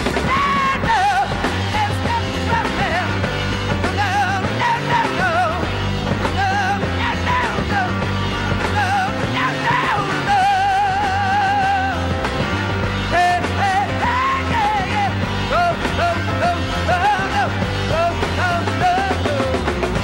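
Three-piece rock band playing live: electric guitar, electric bass and drums, with a high lead vocal that slides and wavers over them.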